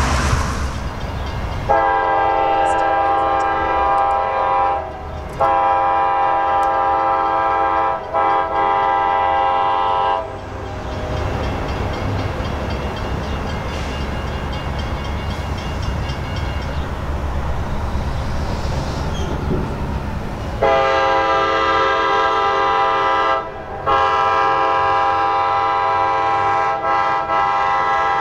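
Diesel locomotive horn on the Reading & Northern F units, sounding two long blasts, then after about ten seconds of the train's low rumble two more long blasts near the end.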